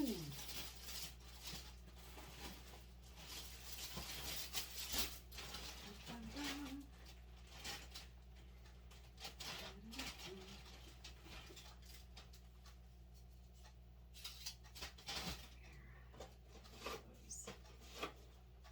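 Rustling and small handling sounds, with scattered soft clicks and knocks, busiest in the first few seconds and sparser after. A steady low hum runs underneath.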